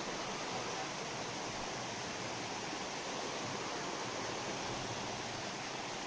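Small waterfall cascading down stepped rock ledges into a shallow pool: a steady, even rush of babbling, splashing water.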